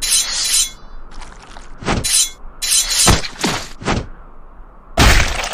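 Cartoon fight sound effects: a rapid series of about seven claw-slash hits and crashes, some with a falling swoosh. The loudest crash comes about five seconds in.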